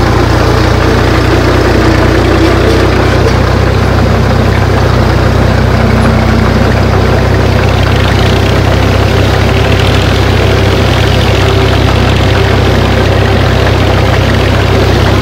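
Farm tractor's diesel engine running steadily as it pulls a cultivator and wooden levelling plank through ploughed soil, heard close up from on board the tractor.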